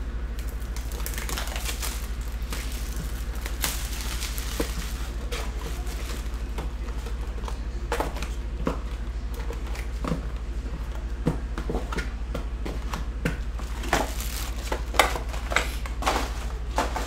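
Plastic shrink-wrap crinkling and cardboard rustling as a sealed Bowman Sterling baseball card box is torn open and handled, with scattered taps and clicks, the sharpest near the end. A steady low hum lies underneath.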